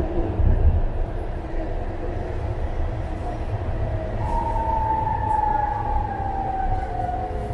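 BART train running, heard from inside the car: a steady low rumble, joined about four seconds in by a whine that slowly falls in pitch.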